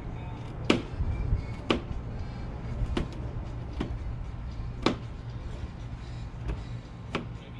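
Knife chopping garlic cloves on a plastic cutting board: about six sharp, separate strikes spaced irregularly, roughly one a second, over a steady low hum.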